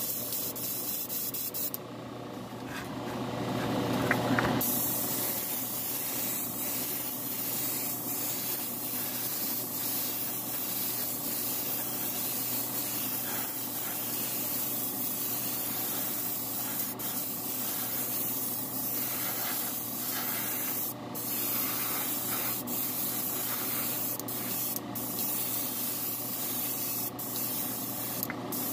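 Small spray gun hissing steadily as it sprays water-based primer onto a plastic model car body, with a few brief breaks near the end where the trigger is eased off.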